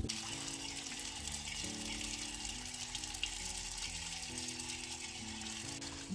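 Water running steadily from an outdoor tap into plastic bottles, a constant hiss, under soft background music of slowly changing held notes.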